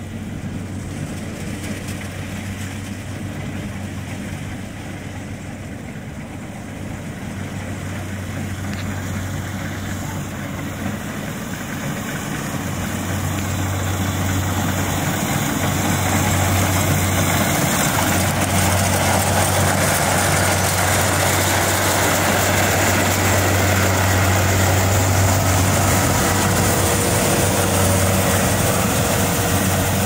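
Kubota rice combine harvester at work, its diesel engine running with a steady low hum under the broad noise of its cutting and threshing machinery as it harvests standing rice. The sound grows louder through the first half as the machine comes close, then holds steady.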